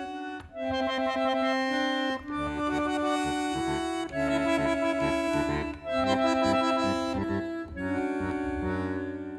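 Instrumental music: a melody of held notes in short phrases with brief breaks between them, with a bass line coming in about two seconds in.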